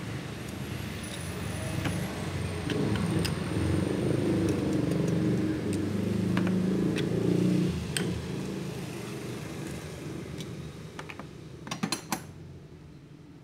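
Toyota Vios engine running, louder in the middle and then easing back, with a few sharp metallic clicks near the end.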